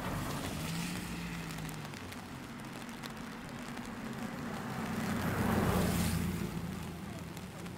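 Rain falling steadily while a vehicle passes on the wet road: its tyre hiss swells to a peak about five to six seconds in, then fades.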